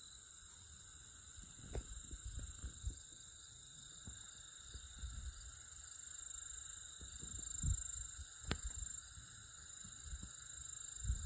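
Steady, high-pitched insect chorus over the prairie grasses, with wind gusts rumbling on the microphone and a single sharp click about two-thirds of the way through.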